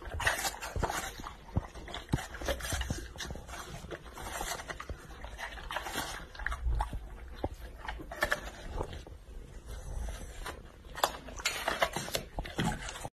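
Golden retrievers eating apple pieces: irregular wet smacking and crunching clicks of chewing and licking.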